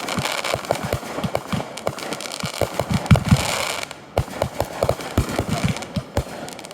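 Fireworks going off: a rapid, irregular string of sharp pops and bangs over a steady hissing crackle.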